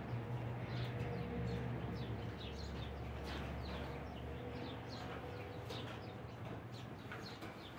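Small birds chirping, many short quick calls, over a steady low hum.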